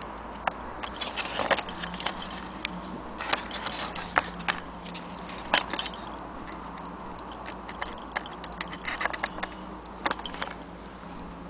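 Irregular small metallic clicks and taps as fingers handle a thin steel pin and parts on a brass clock movement, over a steady low hum.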